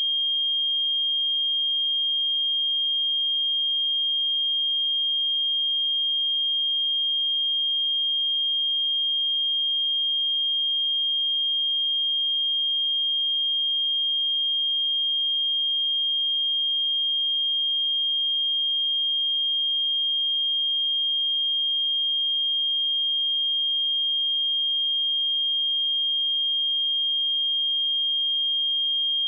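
A pure 3222 Hz sine-wave test tone, held at one steady high pitch and constant loudness.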